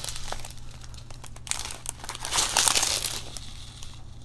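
Small plastic packets of diamond painting drills crinkling as they are handled close to the microphone, loudest about two and a half seconds in.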